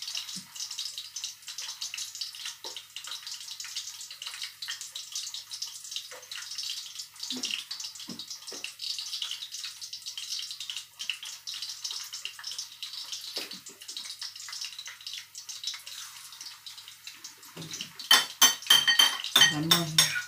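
Minced pork and shrimp patties sizzling in oil in a pan, a steady crackling hiss. Near the end a spoon scrapes quickly against a bowl, about five strokes a second, louder than the frying.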